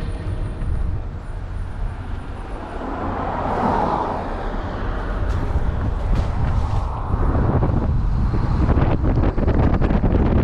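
Outdoor road and traffic noise with wind rumbling on the microphone while on the move, and a swell of noise about three to four seconds in.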